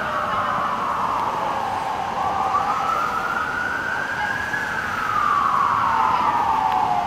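Siren wailing: one tone that falls, rises slowly for about two seconds, then falls again, over steady background noise.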